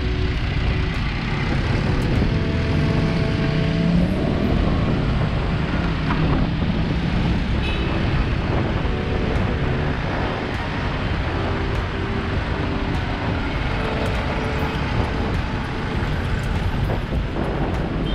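City street traffic heard from a moving bicycle: motorcycle and jeepney engines running close by under a steady road roar.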